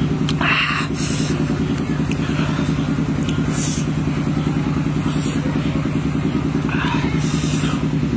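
An engine running steadily with an even pulsing hum, with several short bursts of noise over it.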